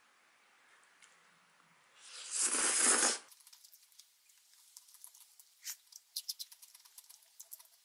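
A person slurping up a mouthful of spicy bibim-guksu noodles about two seconds in, a loud slurp lasting about a second, followed by soft, irregular chewing and mouth clicks.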